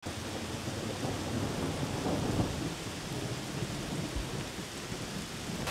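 Steady rain falling on garden trees and foliage, an even hiss with a low rumble underneath.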